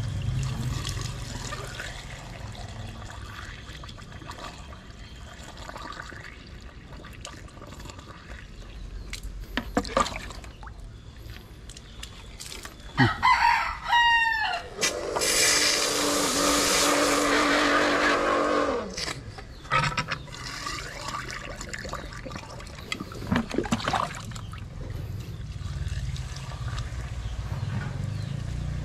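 A rooster crowing once about halfway through: a long, harsh call that drops in pitch at its end. Underneath there is a low steady hum and a few scattered knocks.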